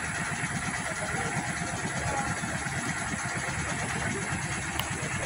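Diesel engine of a UD Trucks Quester heavy truck idling steadily, a fast even low pulsing.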